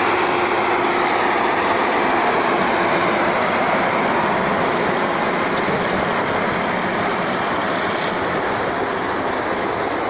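Portable corn dryer running: its fans make a loud, steady, even rush, with machinery running along with it.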